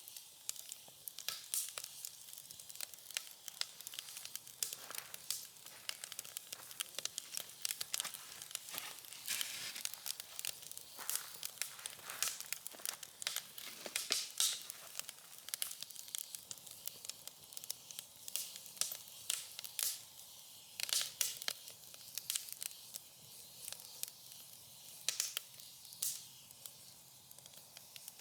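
Firewood burning in a small fire pit, crackling with many irregular sharp pops and snaps over a steady hiss. The pops come in busier clusters about a third of the way in and again past the middle.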